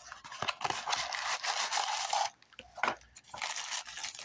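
Plastic packaging bag crinkling and rustling as it is handled and pulled from a cardboard box. The rustle runs for about two seconds, breaks for a moment with a few sharp clicks, then starts again.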